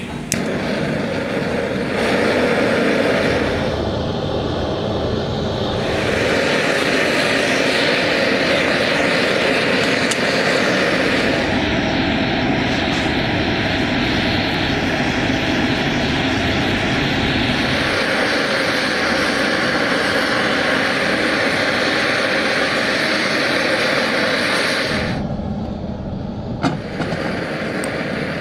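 Gas blowtorch burning steadily with a loud, continuous rushing noise as it heats a pot of scrap lead battery grids; the noise shifts slightly in tone a few times and eases a little near the end.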